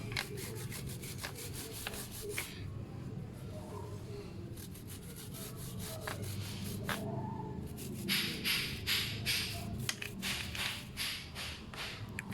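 Brush scrubbing a motorcycle drive chain with cleaning agent, scattered scratchy strokes at first, then brisk, louder back-and-forth strokes from about eight seconds in.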